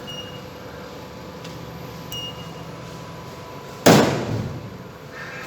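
Vending machine humming, with a short keypad beep about two seconds in, then a single loud bang near the end as the boxed toy car drops into the collection tray, fading over about a second.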